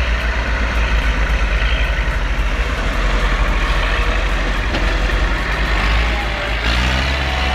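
Heavy vehicle running steadily: a loud, continuous low rumble with machine noise, with no break.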